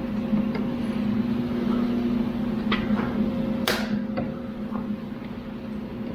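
Squeeze clamps being worked on a glued wooden corner: a few sharp clicks and knocks, the loudest a little past halfway, over a steady low hum.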